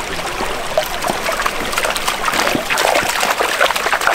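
A small, shallow mountain creek trickling and gurgling over rocks close by, with small splashes as a dog wades through it.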